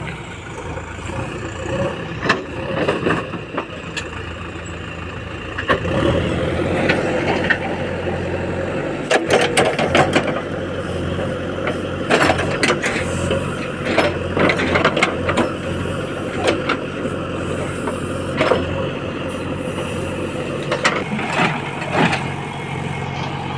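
Diesel engine of a heavy machine running steadily, louder from about six seconds in, with repeated sharp metallic knocks and clanks over it, several in quick succession around the ninth and tenth seconds.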